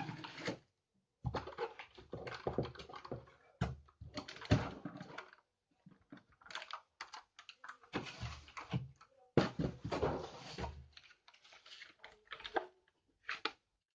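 Cardboard shipping box and boxed firework batteries being handled: irregular rustling, scraping and knocking of cardboard packaging, in several bursts broken by short silences.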